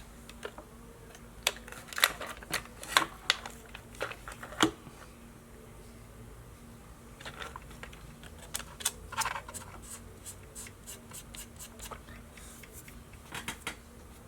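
Irregular sharp clicks and taps from handling the repaired Ronco Pocket Fisherman, its hinge worked back and forth to test the glued repair.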